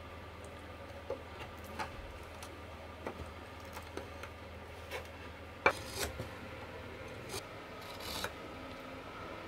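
Hand chisel paring cherry wood: short scraping cuts and small clicks about once a second, with one sharp click a little past halfway. Near the end, a marking knife scrapes along a steel square.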